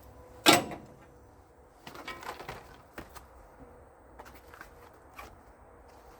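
Hand tools and battery cable hardware being handled: one sharp knock about half a second in, then scattered light clicks and clinks.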